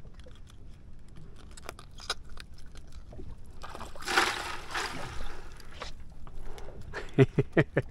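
Water sloshing and splashing in a bucket as a freshly bled fish is dunked and swished in it, about four seconds in. Small knocks and clicks come before it, and a quick run of short pitched sounds comes near the end.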